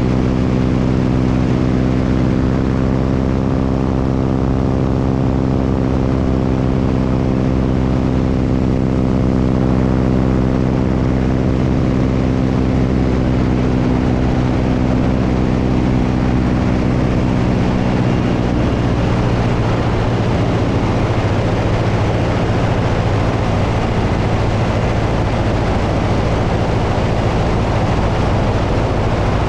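Propeller airplane's engine droning steadily over heavy wind rush. About two-thirds of the way through, the engine's tone fades and the wind noise takes over.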